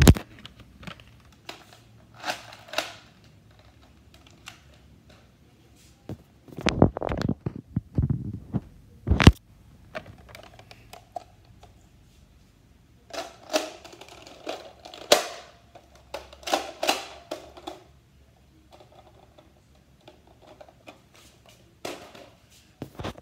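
Nerf blaster being handled and reloaded: scattered plastic clicks and rattles, with a few sharp snaps as parts or a magazine lock into place, and dull knocks about seven seconds in.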